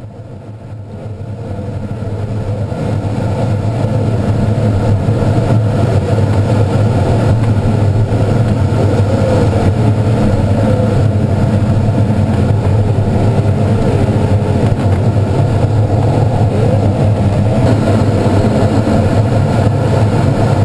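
Loud, steady rush of air over the canopy of an ASW-19B glider flying fast, at about 200 km/h, heard from inside the cockpit. It swells over the first few seconds, with a faint tone that wavers up and down in pitch.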